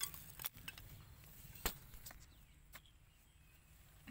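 Quiet outdoor background with a few isolated faint clicks, the sharpest about a second and a half in.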